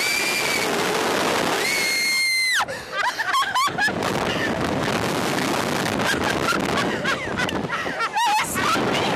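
Two riders on a slingshot ride screaming over a steady rush of wind on the microphone as the seat pod is flung upward: a long high held scream about two seconds in, then shorter broken cries and yelps.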